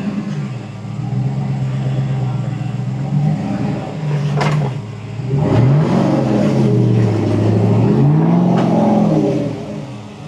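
A 4x4 truck's engine working to climb a rock obstacle on slick wet clay. It runs steadily at first, with a sharp knock about four and a half seconds in, then revs up and down several times in a row.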